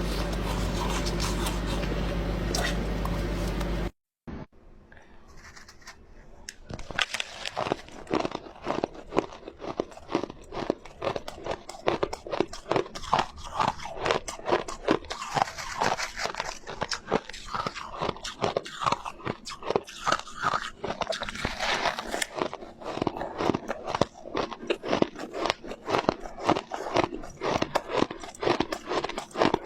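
A steady noise with a low hum cuts off abruptly about four seconds in. After a short hush, close-up biting and chewing of soft white ice begins: rapid, dense crunches that continue throughout.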